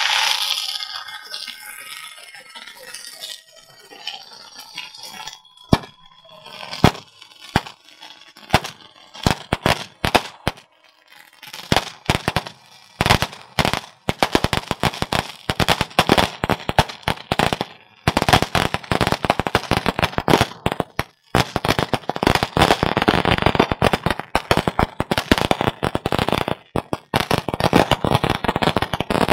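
Strings of firecrackers going off: scattered single bangs at first, coming faster and faster until, about two-thirds of the way in, they become a continuous rapid crackle of cracks.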